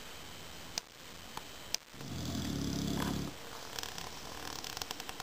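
Sleeping boxer dog snoring: one long, low snore about two seconds in. A few short, sharp clicks come before it and more come near the end.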